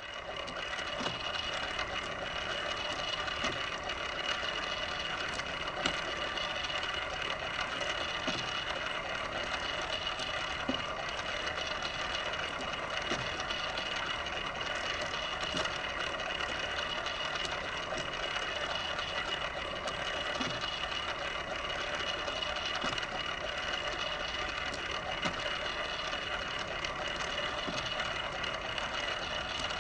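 Motorized display turntable running steadily: a constant whir with a faint high whine and a few faint ticks.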